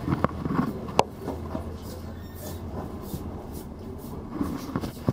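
Inside a city bus: the engine's low hum and cabin rumble in slow traffic, with small rattles. There is one sharp knock about a second in.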